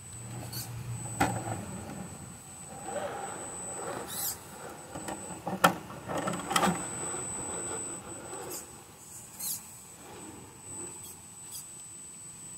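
Vaterra Ascender RC rock crawler working over rocks: a small electric motor and gears whining, with scattered sharp clicks and knocks of the truck against stone, the loudest about halfway through.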